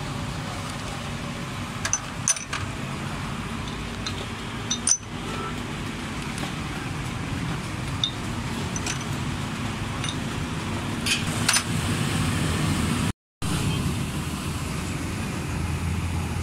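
Light metallic clinks every few seconds from hand tools and parts on an aluminium cylinder head, over a steady low vehicle rumble.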